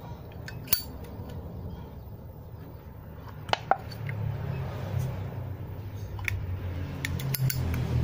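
Clicks and clinks of small hard objects being handled: a few sharp ones about three and a half seconds in and a quick cluster near the end, over a low steady hum.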